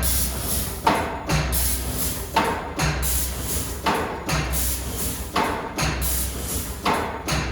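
CNC laser saw-tooth cutting machine cycling: a low hum, then a sharp knock, repeating about every one and a half seconds, five knocks in all, as the blade steel is cut and indexed along tooth by tooth.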